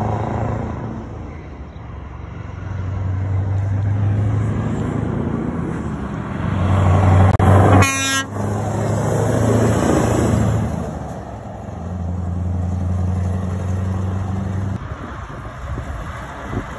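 Heavy lorries' diesel engines passing one after another at low speed, each a low drone that swells and fades. About eight seconds in, one short horn toot, the loudest moment.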